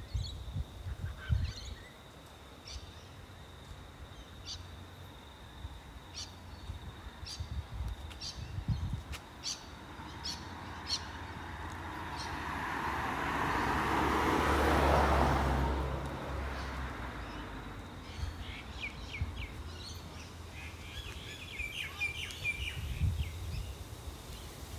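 Birds chirping in short repeated calls, with a car passing about halfway through, its sound swelling and then fading over several seconds.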